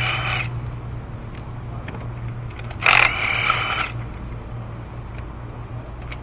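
Cordless power tool spinning a spark plug in short bursts of about a second, a steady high motor whine each time: one ending about half a second in and another about three seconds in. A steady low hum runs underneath.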